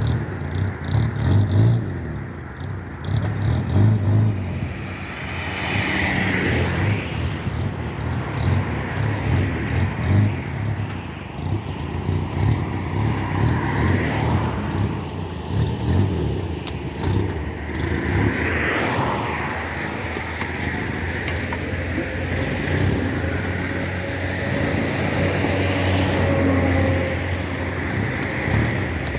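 Toyama chainsaw running while cutting a log, its engine speed rising and falling several times.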